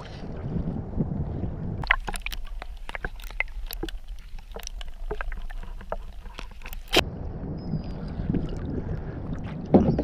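Water splashing and sloshing beside a kayak as a hooked tailor thrashes at the surface, with wind on the microphone. Through the middle comes a run of sharp clicks and taps, and there is a loud splash near the end.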